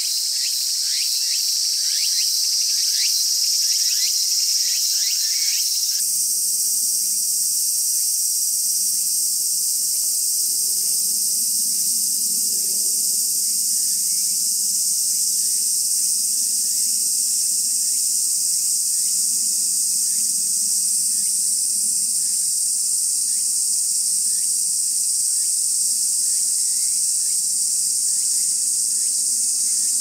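Steady, dense, high-pitched chorus of singing insects. For the first several seconds quick short chirps, a few a second, sound under it; about six seconds in the sound changes abruptly and a faint low hum joins the chorus.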